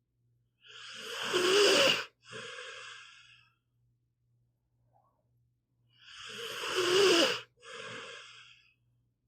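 Pit bull snoring in its sleep: two snoring breaths about five seconds apart, each a long, loud rasping snore followed by a shorter, softer breath.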